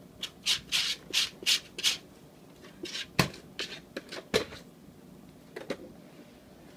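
A cardboard coin-bank box being pawed and shoved along a textured floor mat by a cat: about six quick rasping scrapes, then several sharp knocks as the box bumps and tips, and two fainter knocks near the end.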